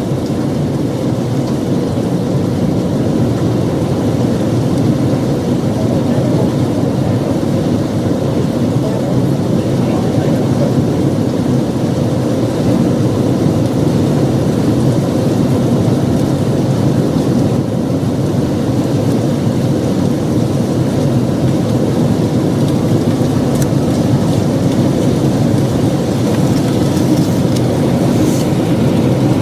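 Heavy rain pouring down, a steady dense rush with no let-up.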